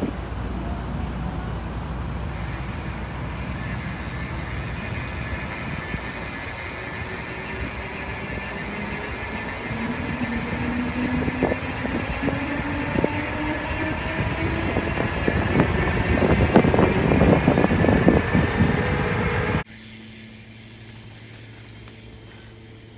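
Wind rushing over a handlebar-mounted camera's microphone and knobby mountain-bike tyres rolling on asphalt, with a tyre hum that slowly rises in pitch and gets louder as the bike picks up speed. Near the end it cuts abruptly to a much quieter, steady low hum.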